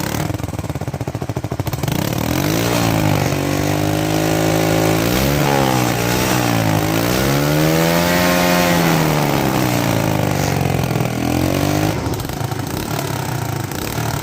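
Motorcycle engine running through a leaking, split silencer, making too much exhaust noise. It is revved up and down several times before settling back to idle near the end. The leak is in the silencer, which needs welding to stop the noise.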